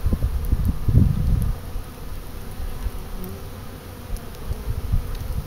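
Honey bees buzzing around an open hive, with a frame of bees lifted out. Low, irregular rumbles on the microphone die away about a second and a half in, leaving the steady buzz.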